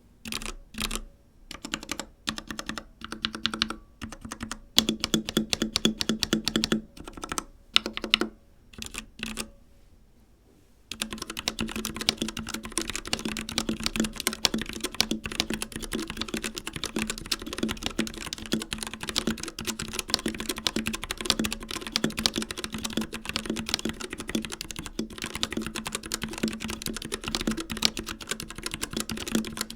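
Typing on a Royal Kludge H61 Plus mechanical keyboard with RK Red switches. Short bursts of keystrokes with pauses between them for about the first ten seconds, a brief pause, then fast continuous typing.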